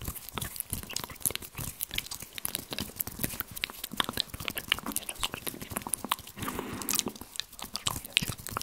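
Close-miked ASMR mouth sounds made into a cupped hand: a dense, irregular run of small clicks and crackles.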